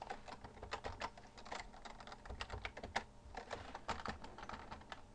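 Computer keyboard being typed on: quick, irregular key presses as a text editor is worked.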